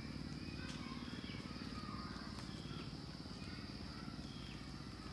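Short, high chirping animal calls repeating several times a second over a steady low rumble.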